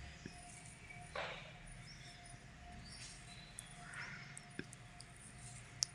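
Faint background ambience: a low steady hum with a few short, faint high chirps and a handful of small clicks.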